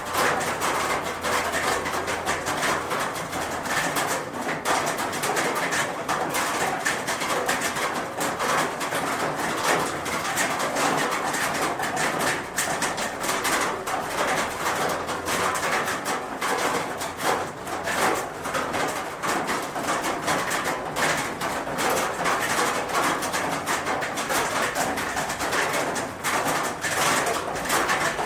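Steady rain falling on a roof: a dense, even spatter of many small drop hits.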